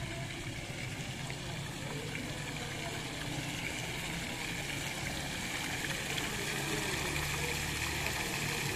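Courtyard fountain splashing: water jets spraying up and falling back into the basin, getting a little louder toward the end, with a steady low hum underneath.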